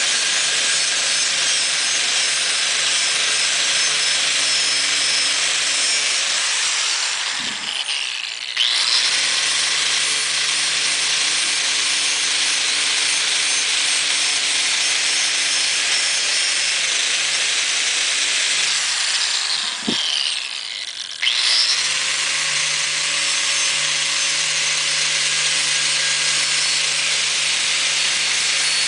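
Corded angle grinder running a bristle disc against a metal drill-press cover plate, a steady high abrasive hiss over the motor's hum, stripping paint and rust. Twice the hiss eases for a couple of seconds and then comes back.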